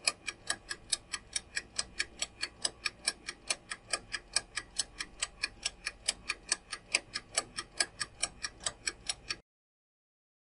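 Countdown-timer clock-tick sound effect: even, rapid ticks at about four a second, counting down the answer time and stopping shortly before the end.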